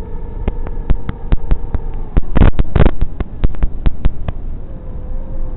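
FPV drone's electric motors and propellers whining at a steady, slightly wavering pitch, heard through the onboard camera with many sharp clicks and wind buffeting. The whine drops away about two seconds in, two loud rushing bursts follow, and it returns near the end.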